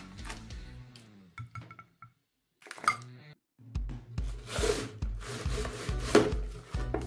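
Background music with a steady bass line, which drops out for a moment about two seconds in and then resumes. Over it come knocks and rubbing from plastic containers being handled, loudest about four and a half and six seconds in.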